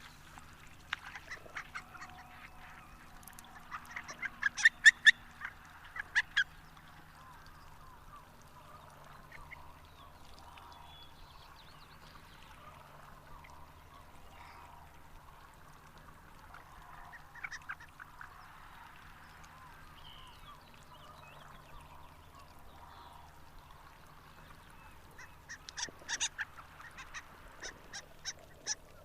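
Harlequin ducks calling in quick series of short, high notes: one burst a few seconds in and another near the end, with a few scattered calls between. A faint steady low hum sits underneath.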